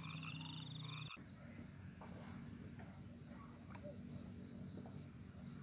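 Faint outdoor ambience with short, sharp, falling animal calls, the two loudest about a second apart. A steady hum cuts off about a second in.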